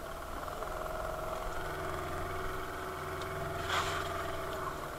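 The fishing boat's outboard motor running steadily at idle, a constant low hum with a steady whine above it. There is one brief rustle a little under four seconds in.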